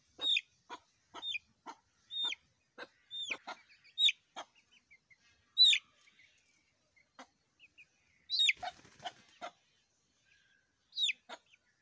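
Aseel chick peeping: short, high calls that drop sharply in pitch, one or two a second for the first half, then fewer, with a quick cluster about eight and a half seconds in.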